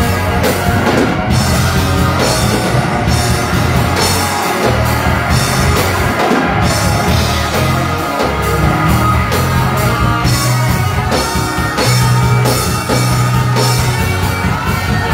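Upbeat gospel rock worship music with a drum kit, bass and electric guitar playing steadily.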